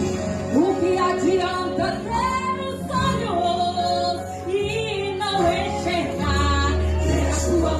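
Gospel worship song: a woman singing long, gliding notes over sustained accompaniment, with a deep bass coming in about six seconds in.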